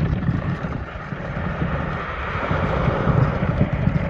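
Wind buffeting the microphone in a steady, gusty rumble, over the hiss of a moving dog sled's runners on packed snow.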